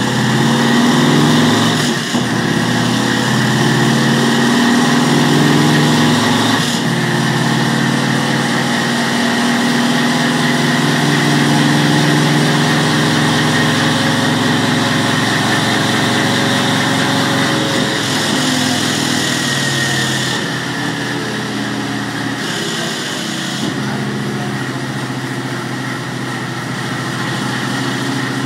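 Yamaha MT-01's 1670 cc V-twin running on a motorcycle dyno, its rear wheel driving the roller. Revs are held mostly steady, with a few small changes in pitch, and ease off slightly in the second half.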